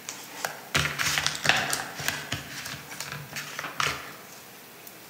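Taps and clicks of a small microphone being handled close to the phone, with a woman's voice humming or murmuring low between them.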